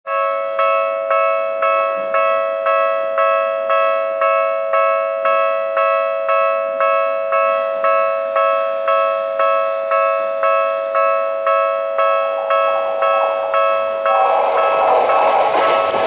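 Japanese railway level-crossing alarm ringing in two tones, about twice a second without a break. About fourteen seconds in, the running noise of a Seibu 6050-series electric train passing on the rails swells up under the alarm.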